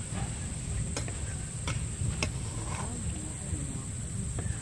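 Perforated metal ladle clicking sharply against the metal frying pan several times as a fried achu murukku is scooped out of the hot oil, over a low rumble and a steady high-pitched hum.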